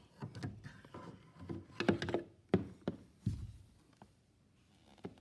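Plastic toy tiger figurine knocking and tapping against wooden surfaces, with handling noise: a handful of sharp clicks and dull thumps in the first three and a half seconds, then almost nothing.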